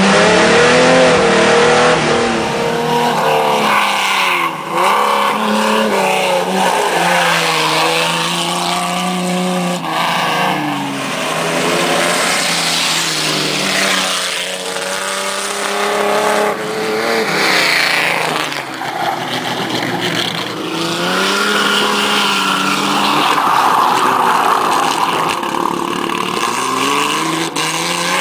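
Race car engines revving hard on a dirt track, the pitch rising and falling over and over as the cars accelerate, lift and shift gears.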